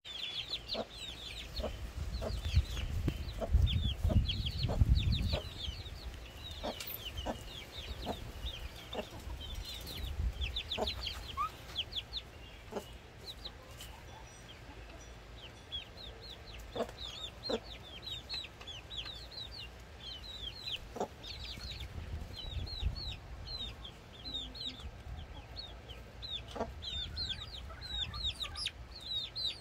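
Young chickens peeping steadily in short, high, falling chirps while they peck at a watermelon, with scattered sharp taps. A low rumble rises under them a few seconds in.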